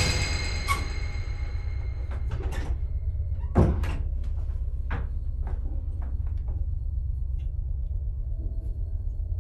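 A door thuds shut about three and a half seconds in, among scattered light clicks and knocks. A ringing tone fades out in the first second or so, over a steady low hum.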